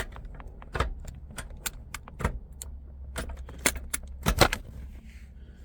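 Irregular sharp metallic clicks and clacks as the 350Z's short shifter assembly is moved and handled, with a pair of louder knocks about four and a half seconds in.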